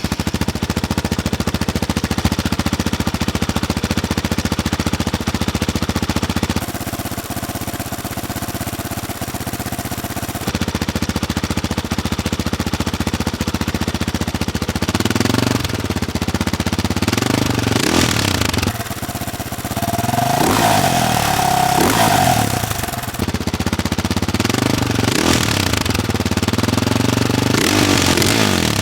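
2001 KTM 520 EXC's four-stroke single-cylinder engine running through a Higashi racing exhaust: idling at first, then blipped over and over in the second half, the pitch rising and falling with each rev.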